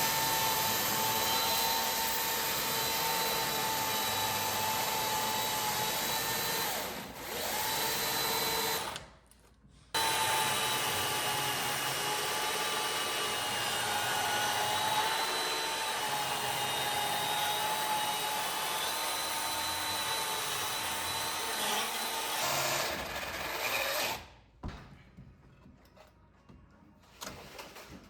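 Electric drill running under load, boring into wood with a steady whine whose pitch wavers slightly. It stops about nine seconds in, starts again a second later and runs until it cuts off about four seconds before the end.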